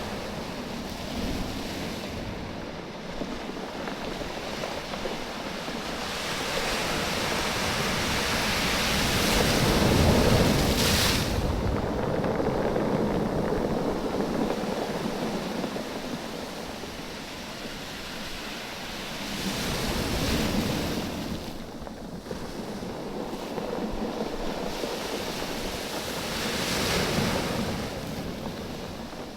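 Waves surging up and drawing back over a beach of rounded oval stones, the stones clattering against each other in the wash. The sound swells and ebbs several times, loudest about a third of the way through.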